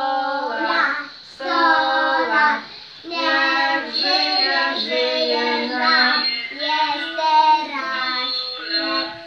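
Voices singing a birthday song, children's voices among them, in held notes with short pauses between phrases.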